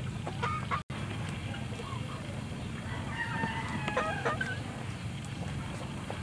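Chickens clucking, with a rooster crowing about halfway through, over a steady low background noise.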